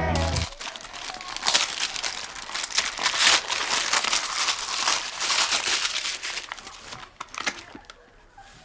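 Paper crinkling and tearing as a package is unwrapped by hand, a dense crackle that thins out and fades near the end.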